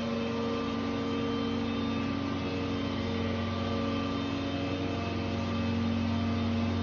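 A machine or engine running steadily with an unchanging droning hum: a strong low hum with several steady higher tones over it.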